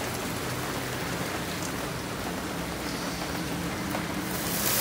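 Heavy rain pouring down, a steady hiss. Near the end a brighter sizzle of spice paste frying in oil in a wok comes up.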